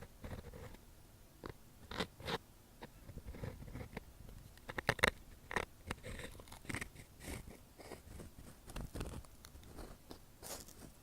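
Ear-cleaning ASMR: an ear pick scraping and tapping right at a TASCAM DR-40 recorder's microphones, giving irregular crackling scratches and sharp clicks, with a loudest cluster about five seconds in.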